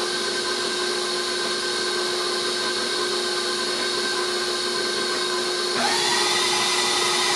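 Electric kitchen mixer running steadily, mixing a meatloaf mixture of ground beef, bread and seasonings; about six seconds in its sound shifts and gets a little louder, and it stops at the very end.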